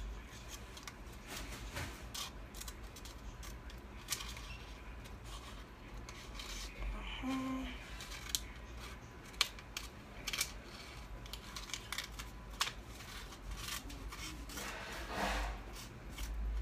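Scissors cutting paper: a long string of irregular snips.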